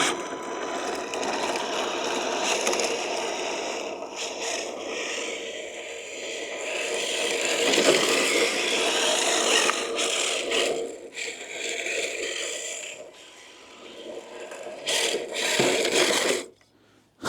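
Kyosho Fazer MK2 electric RC drift car driving over bumpy, pebbly pavement: its hard drift tyres scrape and the chassis rattles over the loose gravel. The noise swells and fades as the car passes, then stops abruptly near the end.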